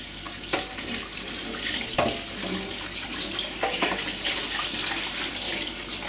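Kitchen tap running into a stainless steel sink while a plastic washing-machine detergent drawer is rinsed and scrubbed under the stream, with a few short knocks as the drawer is handled.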